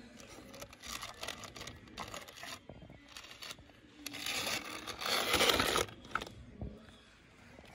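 Plastic toy truck pushed by hand over sandy, gritty ground, its wheels and body scraping and crunching through the dirt in irregular bursts, loudest about five seconds in.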